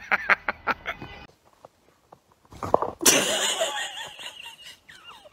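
Quick bursts of laughter fading out within the first second. After a short pause, a dog starts a noisy vocalising with wavering pitch about three seconds in.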